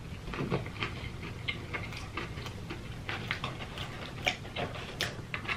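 Close-miked chewing of crispy fried chicken: a run of small, irregular crunches and mouth clicks.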